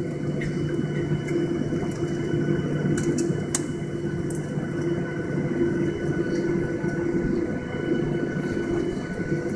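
Steady cabin hum of a Boeing 737-800 taxiing, with its CFM56-7B engines running at low power, made up of several held tones over a steady rush. A couple of faint clicks about three seconds in.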